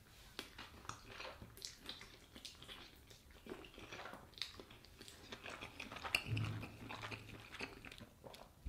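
A person chewing a mouthful of spaghetti carbonara, faint and irregular wet mouth clicks and smacks, with a brief low hum about two-thirds of the way through.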